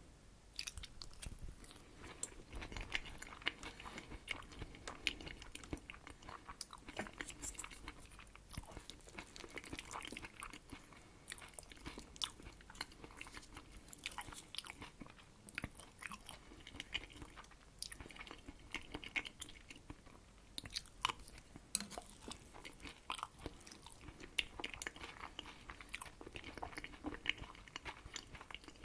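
Close-miked chewing of herring under a fur coat salad: soft, wet mouth sounds with many small clicks and light crunches, continuous throughout.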